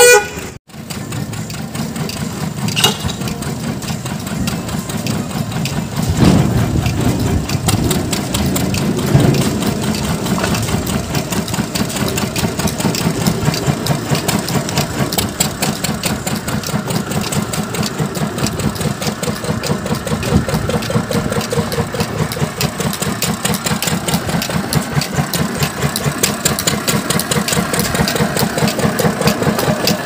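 Engine-driven machinery of a concrete block-making setup, a drum concrete mixer and block press, running steadily with a fast, even chugging beat. A short loud burst comes right at the start.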